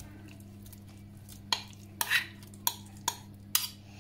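Metal spoon scraping and knocking against the rim of a bowl while scooping thick nettle purée into cake batter: about five sharp clinks, roughly half a second apart, in the second half.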